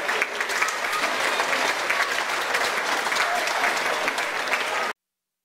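Stadium crowd at a rugby league match applauding and cheering, a dense wash of clapping that cuts off suddenly near the end.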